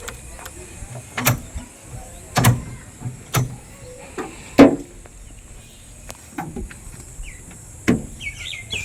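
About five loud knocks or clunks at uneven intervals, the loudest a little past halfway, over a faint steady low hum. A few short high chirps come near the end.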